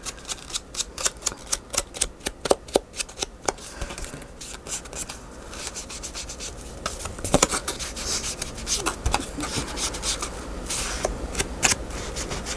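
Stiff paper cards being handled on a desk: rubbing and sliding, with a quick run of small taps and ticks in the first few seconds, then softer rustling.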